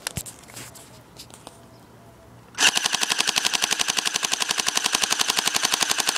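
Dboys M4A1 electric airsoft rifle firing on full automatic: a few faint handling clicks, then, about two and a half seconds in, a long, loud, rapid, even burst of shots that empties its 40-round magazine.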